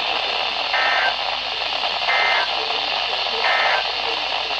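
NOAA Weather Radio's SAME end-of-message data bursts: three short two-tone warbling bursts about 1.4 seconds apart, over steady radio static, marking the end of the broadcast alert.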